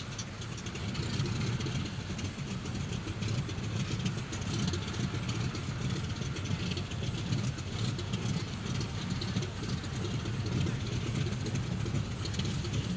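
Hawker Hurricane's Rolls-Royce Merlin V12 piston engine running, a steady rough low rumble.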